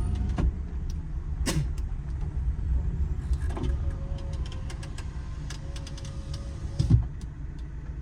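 Vehicle engines running in stalled road traffic: a steady low rumble, with a few sharp knocks and clicks.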